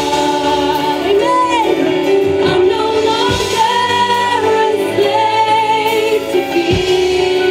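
Two women singing a praise and worship song in sustained notes with vibrato, accompanied by acoustic guitar.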